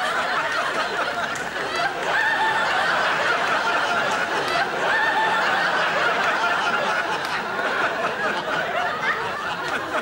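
A studio audience laughing loudly, many voices overlapping in one long, unbroken wave of laughter.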